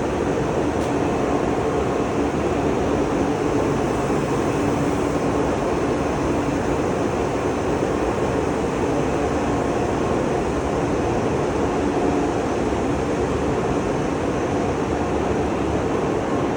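Steady mechanical running noise with a faint hum through it, unchanging throughout.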